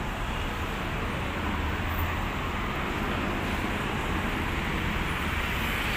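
Steady roar-free hum of dense city road traffic, cars and motorbikes on the multi-lane avenue beneath the footbridge, with no single vehicle standing out.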